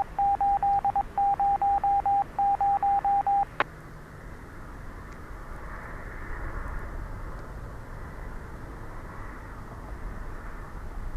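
Police scanner radio beeping: short beeps all at one pitch, in three quick runs of about five or six a second, ending with a sharp click a little over three seconds in. After that only steady radio channel hiss.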